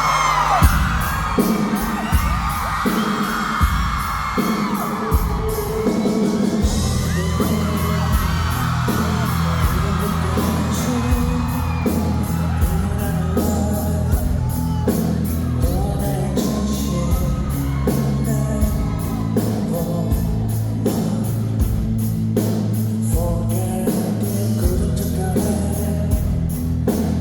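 Live pop concert music with a steady beat and driving bass, with fans screaming over it, mostly in the first few seconds.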